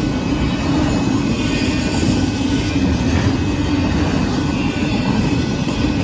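Union Pacific intermodal freight train's container cars rolling past at speed, a loud, steady rumble of steel wheels on the rails.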